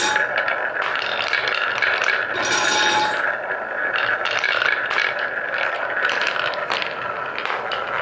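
Many wooden balls rolling round and round a wooden funnel bowl: a steady rolling rumble with frequent small clicks as they knock into each other and drop through the centre hole.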